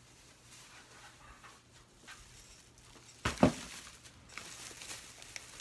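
A plastic shopping bag is set down on a table with a sharp thump about three and a half seconds in, followed by soft rustling of the bag.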